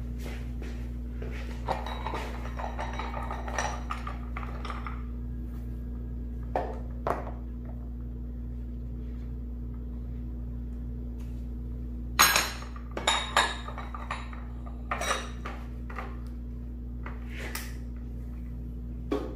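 Scattered metallic clinks and knocks from metal parts and tools being handled on a workbench, heaviest in a quick cluster about two-thirds of the way through, with some rustling early on, over a steady low hum.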